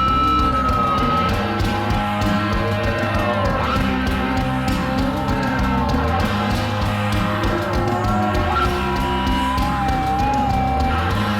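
Music: a rock song with guitar and a singing voice, playing steadily.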